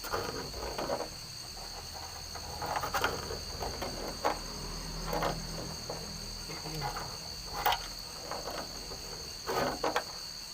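Night insects, crickets, trilling steadily in a high, even tone, with a few short soft knocks scattered through.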